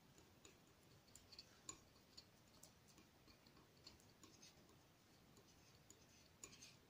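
Near silence, with faint scattered ticks and light scrapes of a palette knife dabbing and spreading oil paint on paper.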